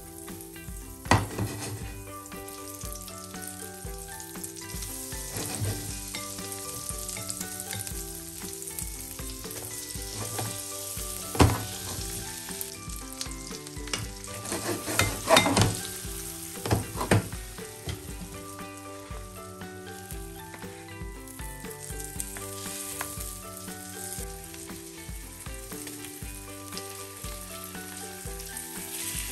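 Floured perch fillets frying in foaming butter in a nonstick pan, a steady sizzle. A spatula clacks sharply against the pan about a second in and again near the middle, with a quick run of knocks and scrapes a few seconds later as the fillets are laid in and turned.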